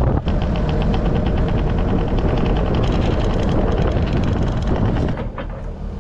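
Compact track loader's diesel engine running as the machine travels, with a fast, even clicking rattle of about eight clicks a second over it; the engine noise drops off about five seconds in.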